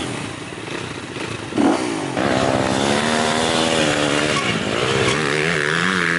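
Dirt bike engines on an off-road race course: a short louder burst about a second and a half in, then a single dirt bike's engine revving, its pitch rising and falling with the throttle as it rides past.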